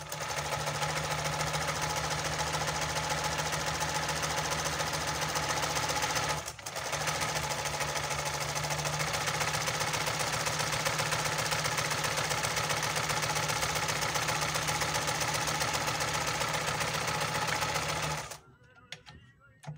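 Olimpia multipunto zigzag sewing machine running steadily as it sews cloth, with a brief stop about six and a half seconds in and a stop near the end. Its parts have a lot of play from wear, yet it sounds good and sews fine.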